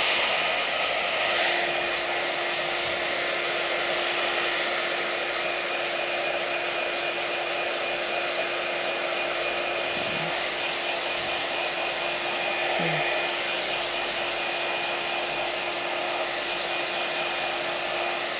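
Handheld iTeraCare terahertz wand running, its built-in fan giving a steady, hair-dryer-like whir with a constant hum and a faint high whine.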